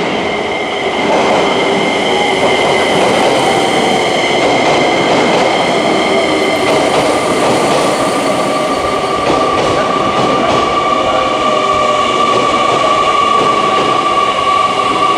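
JR Kyushu 885-series electric train pulling into the platform and slowing, with loud rolling noise and a steady high-pitched squeal from the wheels and brakes. A lower squeal grows stronger from about halfway through.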